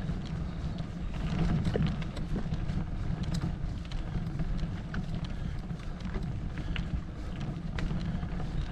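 Mountain bike rolling down a dirt forest trail: knobby tyres rumbling over packed earth and loose stones, with scattered sharp clicks and rattles from stones and the bike. A steady low wind rumble buffets the camera microphone.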